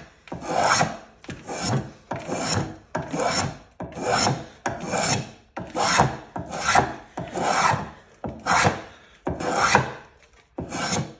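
Spokeshave cutting a chamfer on the edge of a wooden seat: over a dozen separate push strokes, each about half a second, a little more than one a second, each a hissing slice as the blade lifts a shaving.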